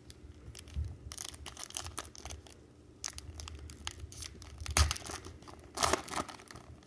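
A trading-card pack wrapper being torn open and crinkled, in several short rips and rustles, the loudest about five and six seconds in.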